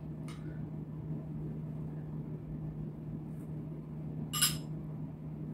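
A metal spoon clinks sharply once against a bowl about four and a half seconds in, with a fainter tap just after the start, over a steady low hum of room tone.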